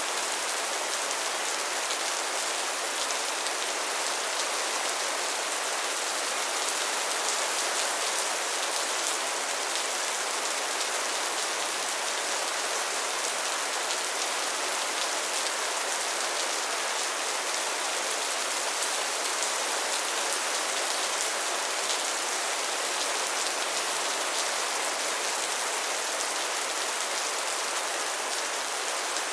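Steady rain falling, a dense even hiss of many drops pattering on a surface, with no thunder.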